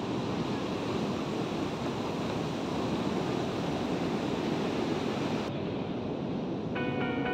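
Ocean surf washing up the beach and breaking, a steady rushing noise. A soft music track comes in near the end.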